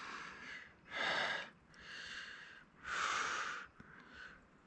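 A man breathing hard through his nose and mouth close to the microphone: about five short hissing breaths, roughly one a second, alternating in and out.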